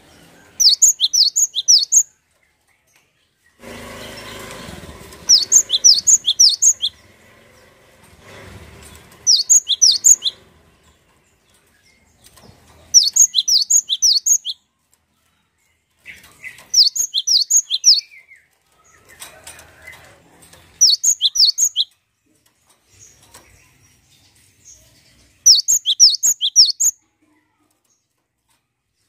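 Cinereous tit (gelatik batu) singing: short phrases of rapid, sharp, high notes, about seven phrases, each roughly a second and a half long, repeated every three to four seconds. A brief rustle comes about four seconds in.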